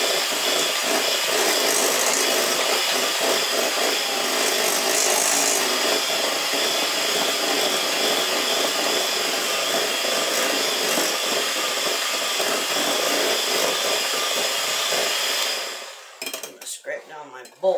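Handheld electric mixer running steadily, its beaters whipping cream cheese and egg batter in a glass bowl. It shuts off about a second before the end, leaving a few small clicks.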